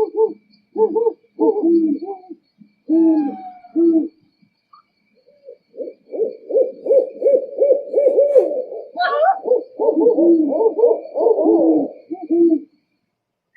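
Owls hooting: short hoots in irregular groups for the first few seconds, then a long run of rapid hoots from about six seconds in, broken by one higher, rising call about nine seconds in. The hooting stops near the end.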